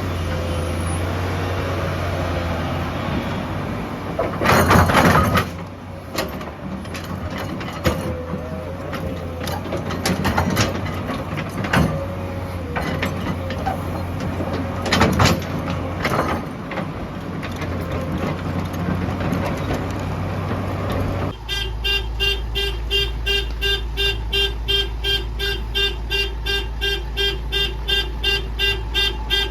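Excavator engine running, with two loud crashes, about four seconds and fifteen seconds in. About two-thirds of the way through the sound changes abruptly to a vehicle horn beeping rapidly, about three pulses a second, over a low steady engine sound.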